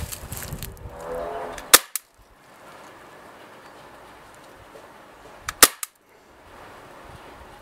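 Glock 17 CO2 .177 pellet pistol firing two sharp shots about four seconds apart through a chronograph during a power test.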